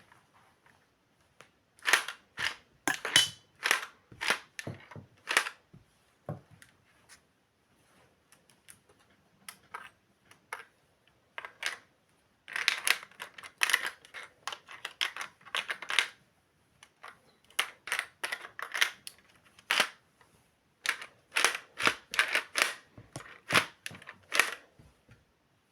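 Sharp plastic clicks and clacks of a Lego-brick pump-action shotgun being reloaded and worked by hand. They come in several quick clusters of clicks with short pauses between them.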